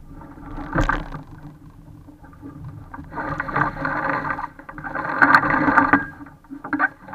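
Water rushing and splashing along the hull of a small sailing dinghy under way, swelling in surges about three and five seconds in.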